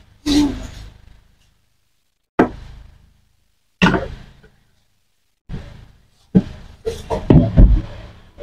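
Separate short knocks and thuds at irregular intervals, coming closer together and louder near the end.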